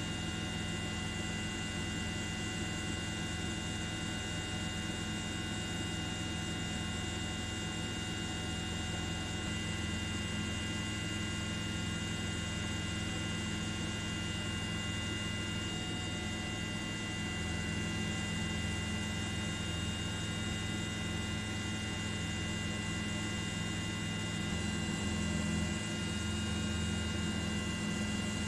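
Steady drone of the aircraft carrying the aerial camera: a low hum with several high, fixed whining tones over an even hiss, unchanging in pitch.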